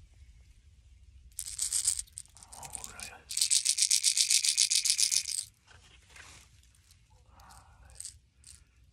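Booyah Hard Knocker lipless crankbait shaken close to the microphone, the BBs in its two rattle chambers clattering: a brief shake about a second and a half in, then a fast, even rattle of about ten shakes a second for some two seconds.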